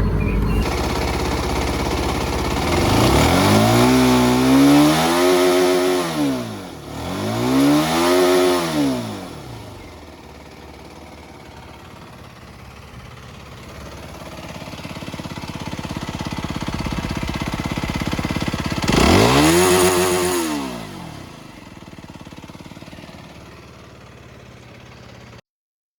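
Aprilia RS125's single-cylinder four-stroke engine idling and blipped up to high revs three times, each rev climbing quickly and falling back to idle: two in quick succession in the first ten seconds and one more later. The sound cuts off just before the end.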